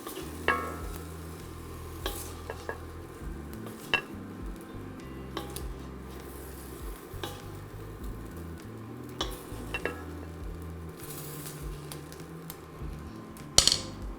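Food sizzling in a cast iron wok as it is stir-fried, with a utensil knocking and scraping against the pan every second or two and a louder clatter near the end.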